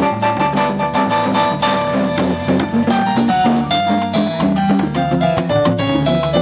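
Live salsa band playing, with electric bass, keyboard and electric guitar over a busy drum and percussion beat.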